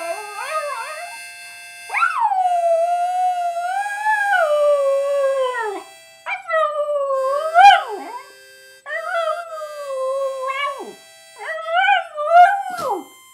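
A dog howling along to a harmonica: a series of long, wavering howls that slide up and down in pitch, with short breaks between them. The harmonica holds steady chords underneath.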